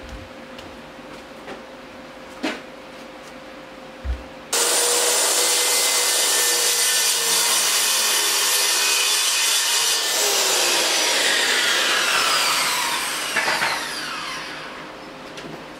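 Two light knocks, then a handheld electric power tool starts about four seconds in and runs against wood for several seconds. It is then switched off and winds down with a falling whine that fades out over a few seconds.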